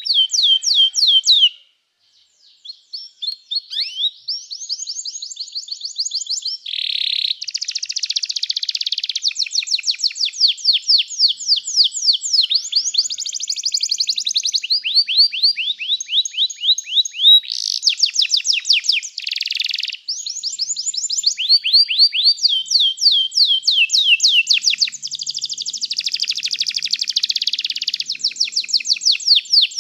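Domestic canary singing a long song of fast trills, each a quick run of one repeated note, shifting from one pitch to another every second or two. There is a brief break about two seconds in.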